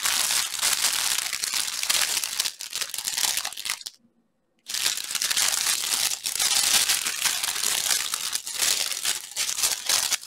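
A clear plastic bag packed with small bagged packets of diamond-painting drills crinkling as it is handled and shaken, in two long stretches broken by a half-second gap about four seconds in.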